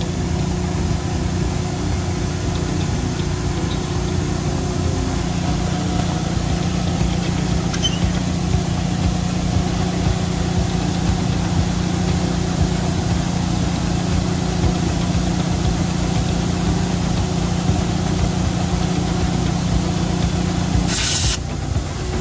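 A motor in the detailing equipment running steadily with a low hum. About a second before the end, a short burst of spray hiss.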